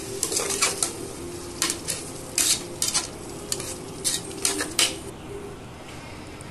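A spoon stirring tomato and onion masala in a pressure cooker, scraping and knocking against the pot in irregular strokes over a steady sizzle of frying oil. The stirring stops about five seconds in, leaving only the sizzle.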